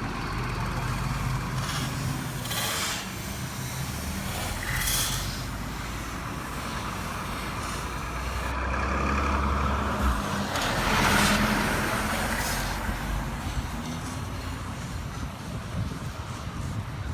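Truck engine running steadily, with short hissing bursts about two and a half seconds in, around five seconds in and again past the middle.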